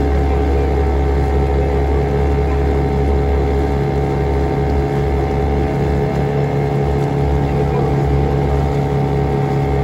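Motorboat engine running at a steady pitch.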